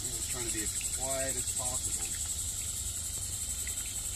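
Chorus of insects in the shoreline mangroves: a steady, high-pitched shrill trill with a fine, even pulse.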